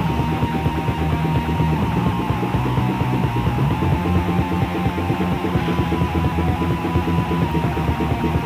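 Raw, lo-fi black metal rehearsal recording: distorted guitars and drums in a dense, unbroken wall of sound, with a held high guitar note over most of it.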